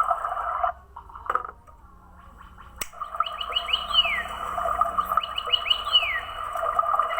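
Toy bird's electronic birdsong: a steady warbling trill that cuts off about a second in. A sharp click follows, then the trill starts again with two runs of quick rising chirps, each ending in a falling whistle.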